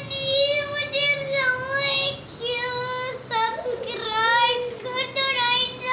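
A young boy's high voice in a playful sing-song: several long, wavering notes with short breaks between them.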